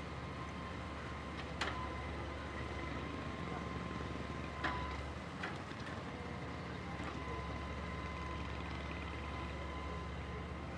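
Hitachi hydraulic excavator's diesel engine running steadily while it demolishes shacks, with a steady whine over the engine and a few sharp knocks of breaking debris.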